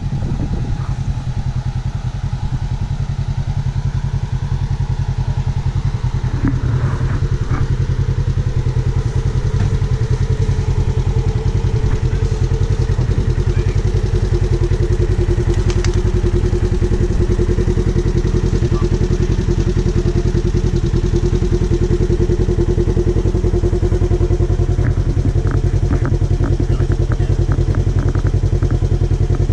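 A vehicle engine idling steadily during a winch recovery of a stuck pickup, with a steady whine for about ten seconds in the middle and a run of light clicks near the end.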